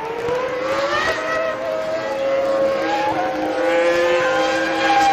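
Jaguar Cosworth V10 Formula 1 engine running at high revs on a flying lap. Its pitch climbs through the first second, then holds high and steady with small shifts in pitch.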